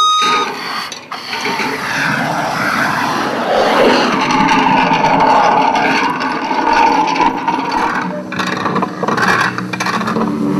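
Rough, uneven scraping of hand-held street-marking tools and a rolling disc dragged over asphalt.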